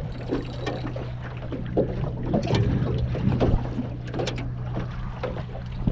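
Small waves slapping against the hull of an aluminium dinghy, with scattered light knocks and a steady low hum throughout.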